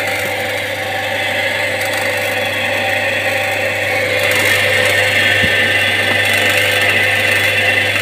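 Indesit washing machine's brushed drum motor running under power with a steady low hum and a hissing over it, the sound of its carbon brushes sparking on the commutator. The repairman takes it for worn motor brushes.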